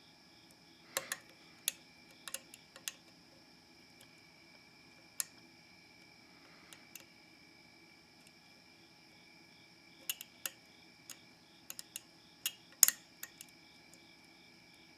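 Scattered sharp metallic clicks and ticks of a dimple pick working the pins of a Mul-T-Lock C10 padlock under tension: a few about a second in, single ones over the next few seconds, and a quick run of them from about ten seconds in, the loudest near the end. The clicks are the feedback of pins being set during picking.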